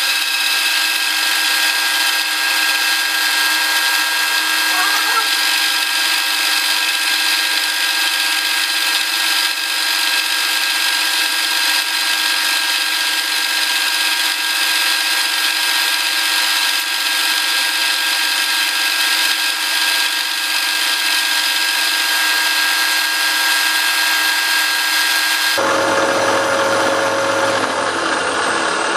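Milling machine cutting a stainless steel workpiece, a steady high-pitched whine with many held tones. The sound changes abruptly a few seconds before the end.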